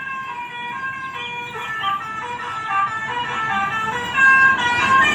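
A bus's 'telolet' Basuri musical air horn playing a quick tune of short stepped notes, getting louder about four seconds in.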